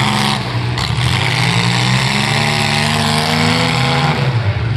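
Several demolition-derby mini trucks' engines running and revving together, their pitches rising and falling.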